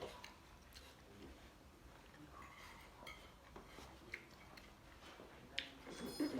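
Faint, scattered clicks and taps of cutlery against plates and bowls during a meal, with a louder clink a little before the end.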